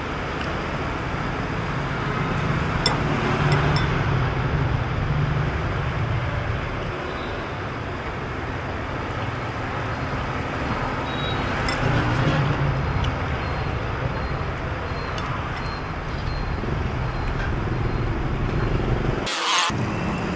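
Street traffic: motorbikes and cars passing, a steady engine-and-tyre noise that swells twice as vehicles go by. Near the end the sound cuts out briefly with a short hiss.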